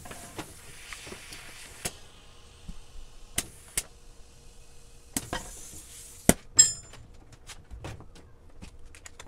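Compressed air hissing from an air hose into a used Dunlop AT81EX gummy dirt bike rear tire, twice. Sharp pops and clicks come as the tire beads snap onto the rim, the loudest about six seconds in, followed by a brief metallic ring.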